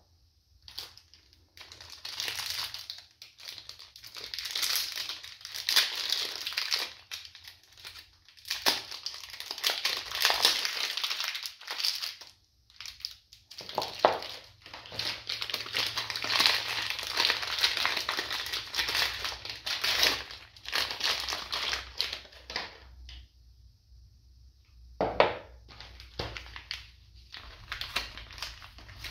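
Soap-bar wrappers of paper and plastic film crinkling and crumpling as hands unwrap them, in long stretches with short pauses. A few sharp knocks come as bars are set down on the table, the clearest about 25 seconds in.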